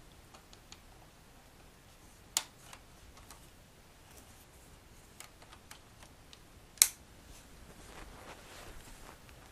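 Ethernet cable being handled and plugged into a laptop's network port: a few sharp clicks, the loudest about seven seconds in, with faint handling ticks and rustling between.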